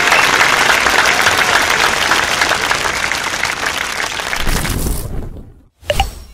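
Crowd applauding, starting abruptly and fading out after about five seconds, then a short pop near the end.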